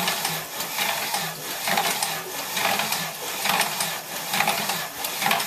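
Simple Pump linear bearing link drive and its DC gear motor running direct off a solar panel, working the pump rod in a steady repeating mechanical clatter of about one cycle a second over a low motor hum.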